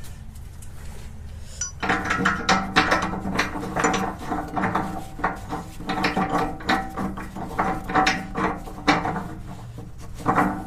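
Metal hardware clanking and rattling against a steel loader bucket: irregular knocks and jangles over a steady metallic ringing, starting about two seconds in.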